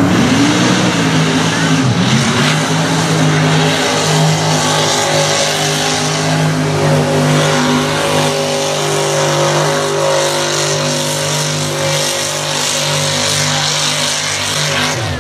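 Mud bog truck's engine revving up and down, then held at high, steady revs for most of the stretch as the truck drives through the mud pit. It cuts off suddenly at the end.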